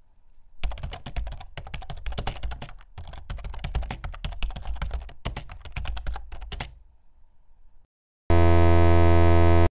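Rapid, irregular clicking of typing on a keyboard for about six seconds, in a few runs with short breaks. After a short pause comes a loud, harsh electronic buzz, held for about a second and a half and cut off suddenly.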